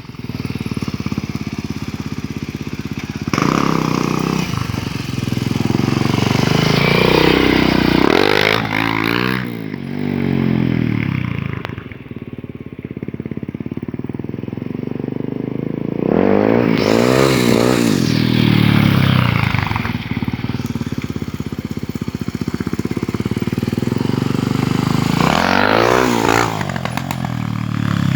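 Motorcycle engine revving and easing off while being ridden in wheelies, passing close three times roughly eight seconds apart.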